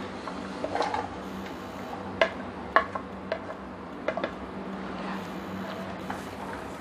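A utensil clinking against a pan about six times in the first four seconds as onion is added to the oil, over a steady low hum.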